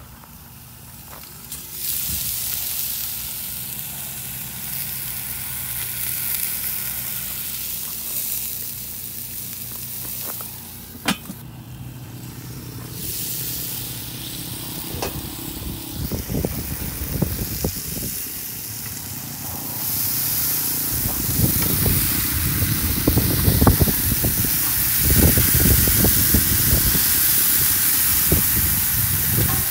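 Chicken breasts sizzling on grill grates over a small Weber charcoal kettle grill: a steady hiss, with one sharp click about eleven seconds in and irregular low rumbling from about sixteen seconds on that grows louder toward the end.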